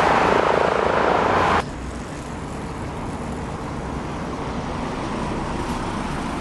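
Loud steady traffic-like roar that cuts off sharply about a second and a half in, giving way to a quieter steady rumble.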